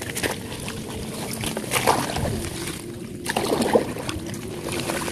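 Small boat being paddled and pushed through dense water hyacinth: irregular splashes, knocks and the rustle of plants, with a few louder strokes about two seconds in and again past the middle.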